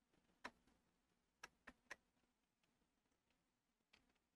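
Faint clicks and taps of cables being handled and plugged into a microscope camera: one click about half a second in, three quick clicks around a second and a half to two seconds, and another near the end.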